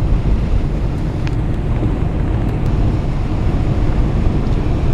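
Strong wind buffeting the microphone, a steady, loud low rumble with no distinct events.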